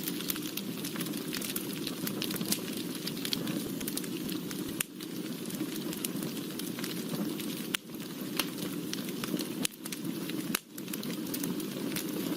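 Wood fire burning, a steady rushing of flames with frequent sharp crackles and pops from the burning wood, dropping away for a split second a few times.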